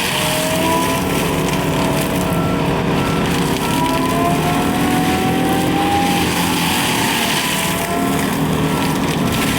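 Excavator-mounted Seppi Star FC hydraulic mulcher running: the excavator's diesel engine under steady load, with a whine that slowly rises and falls as the hydraulic rotor loads and unloads.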